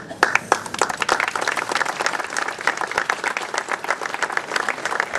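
Applause from a small group of people clapping by hand, breaking out all at once and keeping on.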